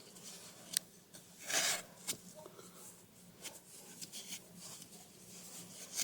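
Faint handling noises: a few light clicks and a short rustle about a second and a half in, as hands work around a car battery's open cell caps.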